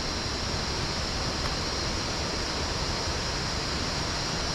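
Steady rushing of water, like a waterfall or fast creek, with a constant high-pitched hiss over it.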